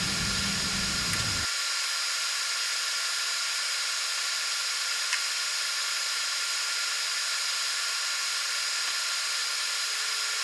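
Industrial laser engraving machine running: a steady hiss with faint constant high whines.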